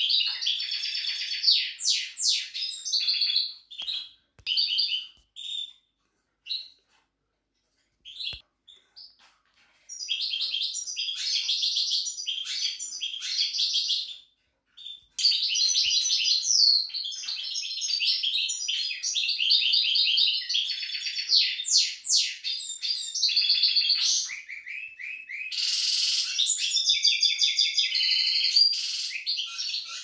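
Caged finches singing: fast twittering and trilling song. It breaks off for a few seconds after the opening phrases, then runs almost without a pause from about ten seconds in.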